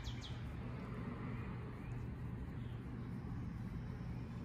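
Steady low hum of street traffic. A rapid high chirping trill stops just after the start.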